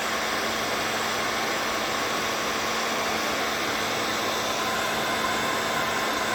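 Heat gun blowing steadily with a faint hum, warming the scooter's wheel hub around the bearing seat so the new bearing presses in easily.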